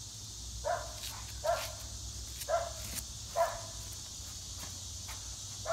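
A dog barking: short single barks roughly a second apart, four in a row, then a pause and one more near the end, over a steady high hiss.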